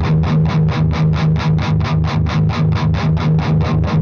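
Distorted electric guitar, tuned to E flat, playing fast, even chugging on a low note at about six notes a second. It is going through the overdrive channel of a Splawn Quickrod 100, a hot-rodded Marshall-style valve amp, set on its lowest-gain 'first gear', while the treble control is swept from 0 to 10.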